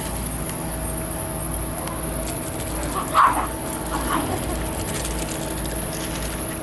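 A dog gives two short barks about three and four seconds in, the first one louder.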